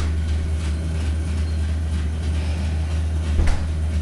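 Air-conditioning system droning through the vents with a loud, steady low hum that sounds like an engine running. The residents' own unit is switched off, so they take the noise to come from a faulty unit in the apartment above. A brief knock comes about three and a half seconds in.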